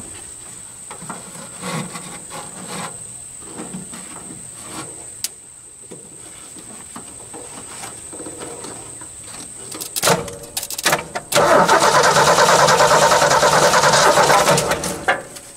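Ford 300 straight-six being cranked by its starter with no spark, so it does not fire: a few sharp clicks about ten seconds in, then the starter spins the engine for about four seconds near the end. It turns over evenly with no gallop, a good sign for the long-idle engine, and shows the starter works.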